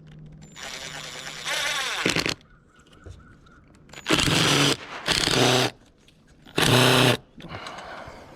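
A power tool runs for about a second and a half and winds down. Then a crow caws loudly three times, each caw about half a second long.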